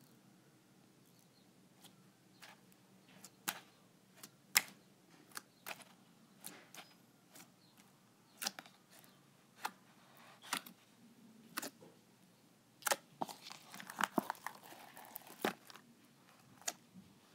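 White slime in a plastic tub being poked and squished by hand: scattered sticky clicks and pops, sparse at first and coming thicker with a crackle near the end.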